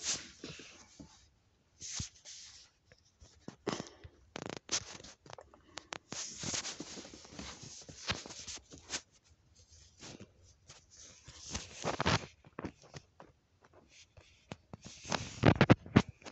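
Rustling and scraping of clothing fabric against a phone, with scattered sharp knocks: handling noise as the phone is moved about against the body. It comes in irregular bursts, with short quiet gaps between them.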